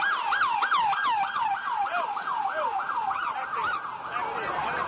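Emergency vehicle siren in a fast yelp, its pitch sweeping up and falling about three times a second, growing fainter near the end.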